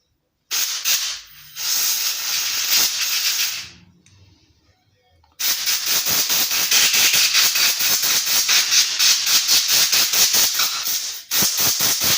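Compressed-air blow gun hissing as it blasts dust off a chainsaw carburetor. There is a blast of a few seconds, then a longer one of about six seconds, then a short one near the end.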